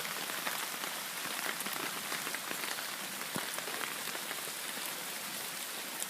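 Heavy rain falling steadily, an even hiss with scattered sharp ticks of drops striking close by.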